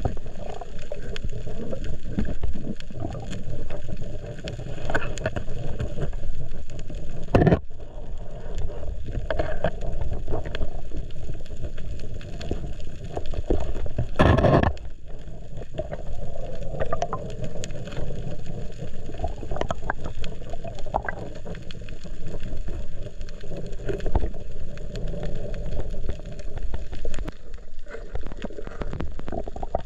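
Underwater sound picked up by a camera in its waterproof housing on a coral reef: a steady low rumble of water with scattered fine crackling clicks. A sharp knock comes about seven and a half seconds in, and a louder half-second rush about fourteen seconds in.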